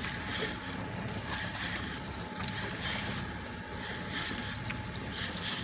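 Steady drone of an engine running on a small wooden fishing boat, with water splashing against the hull every second or so.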